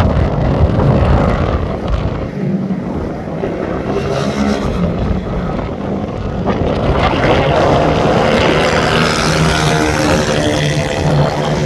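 Small engines of several mini moto racing bikes running hard as they lap a circuit, their pitch rising and falling as the bikes accelerate and pass.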